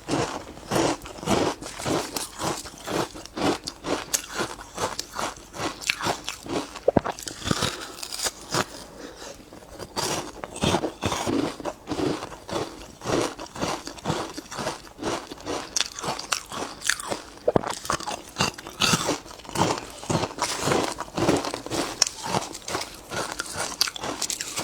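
Ice being bitten and chewed close to the mouth, a fast, irregular run of sharp crunches and cracks, several a second, with a short lull about eight to ten seconds in.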